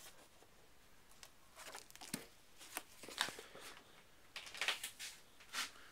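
Paper rustling and crinkling in several short, irregular bursts as the pages of drawing books and loose sketches are handled and turned.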